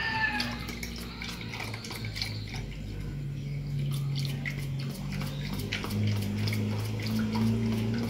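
Masa water (corn dough mixed with water) trickling and dripping through a mesh kitchen sieve into a plastic bowl, with small wet clicks and squelches as fingers work the masa against the mesh. A steady low hum runs underneath.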